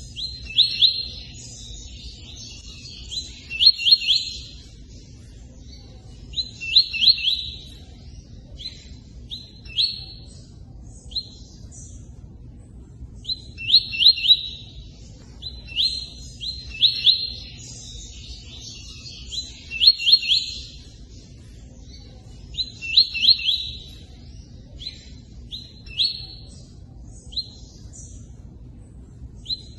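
A songbird singing the 'tui-tui' song: short phrases of sharp chirps and quick trills, repeated every few seconds with brief pauses. A steady low rush of running water sits underneath.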